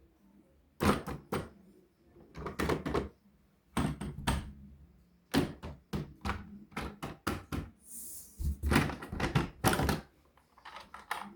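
Hard plastic knocks and clatters in quick clusters of two to four, from toy vehicles and their packaging being handled and set down. There is a brief rustle about eight seconds in.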